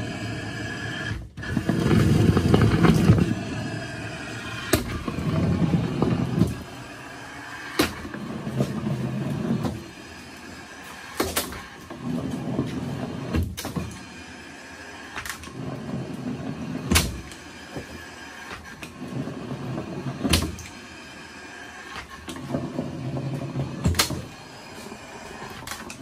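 Roddie R8 hydraulic pipe bursting machine working through repeated pulling strokes on the bursting cable: a low rumble during each pull, alternating with quieter gaps, and a sharp metallic clack roughly every one and a half to two seconds.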